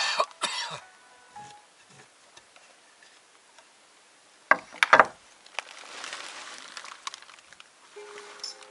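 Hammer driving nails into wooden battens: two sharp blows at the start, softer taps, then a quick run of three louder blows about four and a half seconds in, followed by a couple of seconds of soft hiss.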